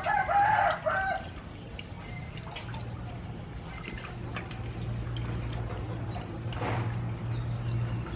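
A rooster crows once, loud, in the first second. Then there is light splashing and dripping of water as fish are washed by hand in a steel bowl.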